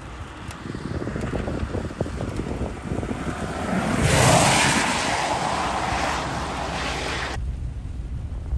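Strong wind buffeting the microphone with a low rumble, swelling about four seconds in into a loud rushing hiss that cuts off suddenly about three seconds later.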